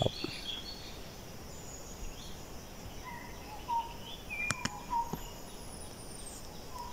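Forest ambience: scattered short bird calls and chirps, including a falling whistle near the end, over a faint steady hum of insects. Two sharp clicks come about four and a half and five seconds in.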